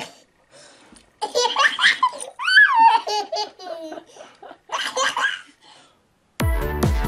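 A baby laughing in bursts of belly laughs, one laugh rising and then falling in pitch about two and a half seconds in. Electronic music with a beat starts abruptly near the end.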